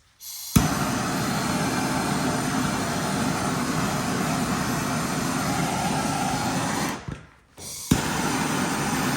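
Electric heat gun running with a steady whir, shrinking heat-shrink tubing over a freshly crimped 2-gauge battery cable lug. It switches on with a click just under a second in, cuts off about seven seconds in, and comes back on with another click about a second later.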